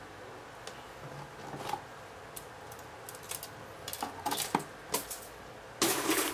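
Plastic model-kit runners (sprues) clicking and tapping against each other as they are handled. Near the end there is a louder, brief rattling clatter as a runner goes back into the cardboard box.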